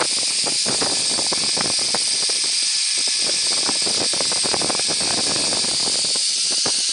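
Zipline trolley running along the overhead cable: a steady high hiss, with scattered crackles throughout.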